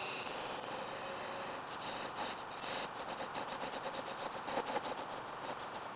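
Parting tool cutting into a spinning black palm blank on a wood lathe: a steady scraping of steel on wood.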